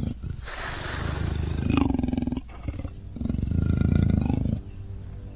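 Two long, growling animal roars from a sound-effects track, the first starting just after the start and the second about three seconds in, each lasting over a second; the roars belong to a beast fight between a great black panther and a wolf-like monster.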